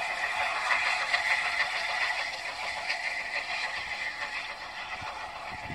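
Steam train running off into the distance: a steady high-pitched rattle and hiss from the train on the rails that slowly fades.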